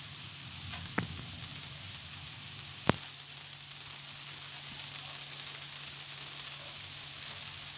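Steady hiss of outdoor night ambience, with a sharp click about a second in and a louder one about three seconds in. A steady low hum sets in with the second click.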